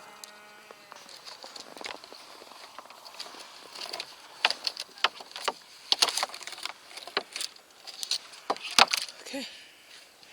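Irregular clicks, knocks and clatter of a stock-tank de-icer being handled and pulled out of a water trough, the loudest knock near the end.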